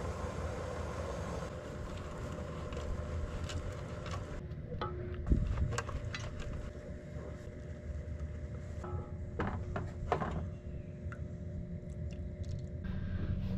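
A steady low rumble under a few sharp knocks and scrapes as a metal box grater and a wooden spoon work against a steaming enamel pot on a portable butane stove, with cheese grated in and then stirred.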